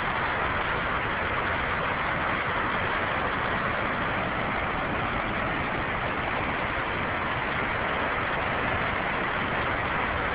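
Steady rush of water falling in a park waterfall: an even, unbroken hiss.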